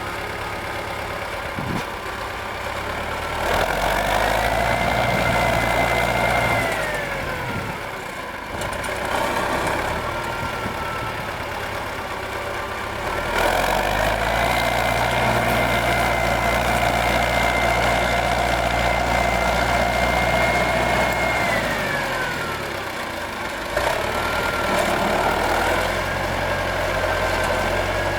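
Four-cylinder air-cooled D-144 diesel of a T-40AM tractor, idling and then revved up and held at high revs three times, the longest for about eight seconds in the middle, each time falling back to idle, with a brief smaller rise between.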